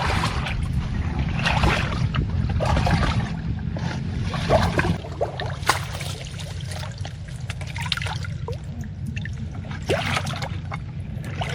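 Water splashing and dripping in irregular bursts, over a steady low rumble that eases about five seconds in.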